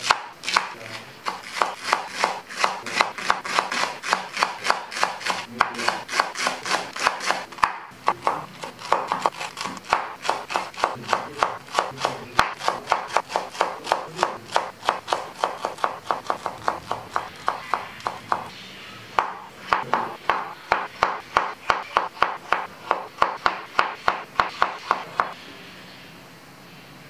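Chef's knife chopping leeks and then leafy greens on a wooden cutting board: an even run of quick knife strikes on the board, about four a second. There are short breaks about 8 and 19 seconds in, and the chopping stops about 25 seconds in.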